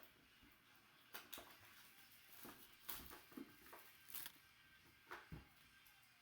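Faint, scattered clicks and rustles of packaging and cards being handled as a trading card box is opened.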